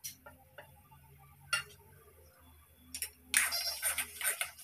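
A spatula clinking against a steel plate and a kadai as spice is scraped into the pan: a few separate clinks. About three seconds in, quick scraping and clattering strokes begin as the spatula stirs the masala in the kadai.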